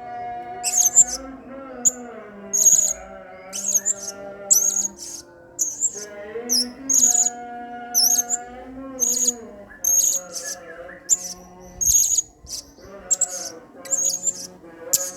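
Blue-crowned hanging parrot (serindit) calling: short, sharp, high-pitched chirps repeated about once or twice a second.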